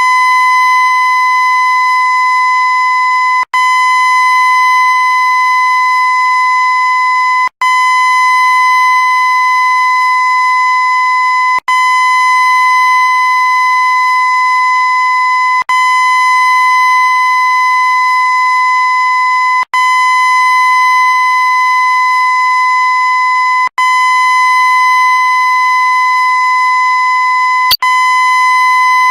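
A loud, steady, high-pitched electronic tone with a buzzy edge, played on a loop. It cuts out for a split second about every four seconds, then resumes unchanged.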